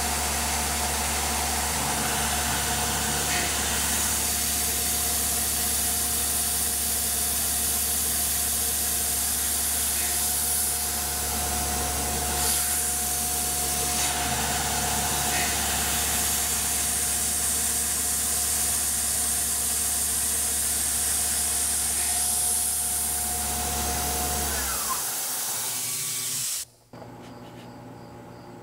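Tormach PCNC 1100 CNC mill slotting 6061 aluminum with a quarter-inch four-flute roughing end mill at 5,100 RPM: a steady cutting tone over a low spindle hum and the hiss of the mist coolant spray. Near the end the cutting stops and the sound drops to faint background.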